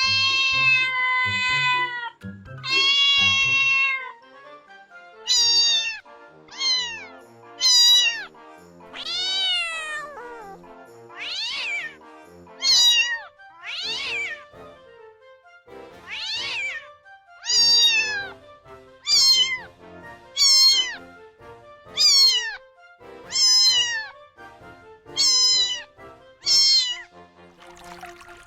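Kitten meowing over and over: two long, drawn-out meows, then more than a dozen shorter meows that each fall in pitch, with quiet background music underneath.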